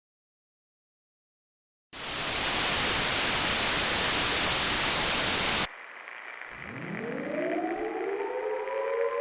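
Dead silence, then a loud burst of static hiss for about four seconds that cuts off suddenly. Near the end a civil defense siren winds up, several tones rising together from a low growl and levelling off into a steady chord.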